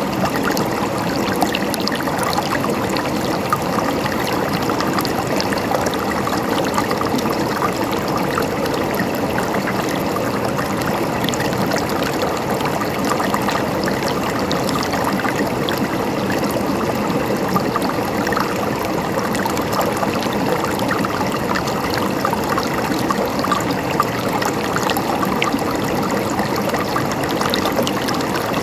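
A mountain stream flowing and gurgling over rocks, a steady, even burble with small splashes.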